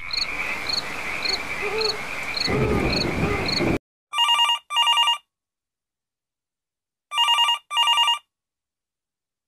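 Push-button desk landline telephone ringing with an electronic trill: two double rings about three seconds apart, the first about four seconds in. Before them, a few seconds of hiss with quick, regular high pips.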